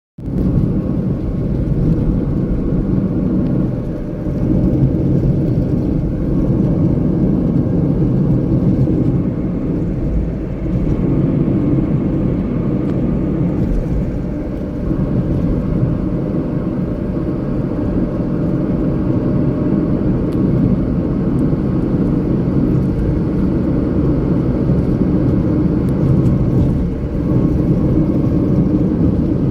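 Steady low rumble of a vehicle, cutting in suddenly and holding with small dips in level.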